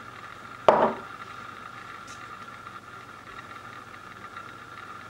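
A single short clack of kitchenware about a second in, dying away quickly, over a steady faint hum.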